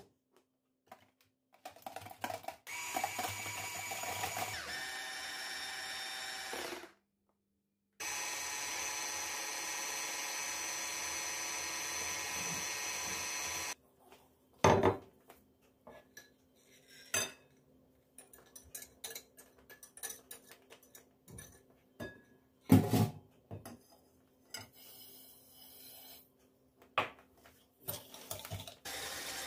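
A small electric kitchen appliance motor running steadily in two stretches of several seconds, stopping briefly between them, followed by clatter and knocks of utensils and dishes, with two louder knocks.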